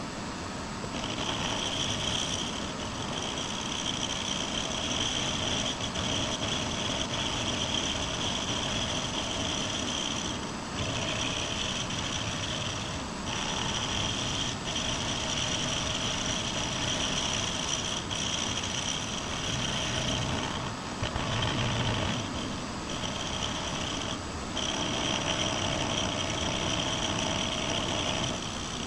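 Benchtop milling machine running, its cutter squaring the sides of a metal part with a steady high whine that starts about a second in and drops out briefly several times.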